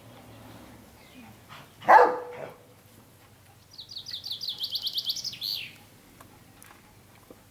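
A songbird sings a quick trill of about a dozen rapid, high chirps lasting under two seconds, ending in a falling note. Earlier, about two seconds in, comes a single short, loud bark-like call, the loudest sound.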